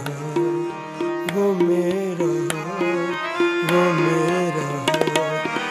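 Instrumental interlude of a South Asian song: a melody instrument plays a sliding, bending line over steady hand-drum strokes.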